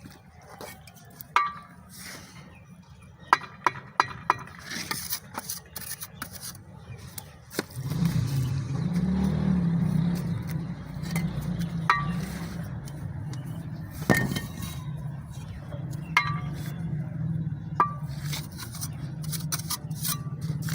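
Steel mason's trowel clinking sharply against bricks and scraping mortar, a brief ringing tap every few seconds. About eight seconds in, a steady low hum starts under it.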